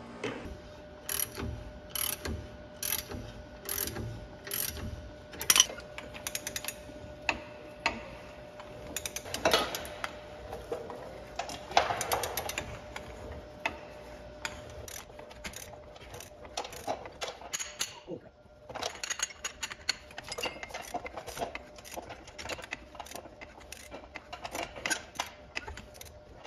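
A hand ratchet clicking in short, repeated runs as it turns the screw of a ball joint press on a steering knuckle, working a ball joint through its bore. The clicks come spaced out at first, then in quicker runs after a brief pause a little past the middle.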